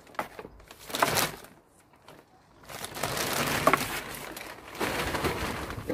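Homemade compost being broken up and worked over in a pot: a couple of short crumbly rustles, then from about three seconds in a continuous rustling and scraping of loose soil.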